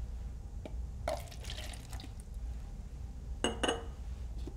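Water poured from a glass graduated cylinder into a foam coffee-cup calorimeter, a short pour about a second in, followed by two light knocks near the end.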